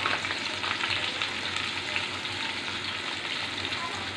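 Sliced onions, just added to hot cooking oil, sizzling with a steady crackling hiss that slowly eases off.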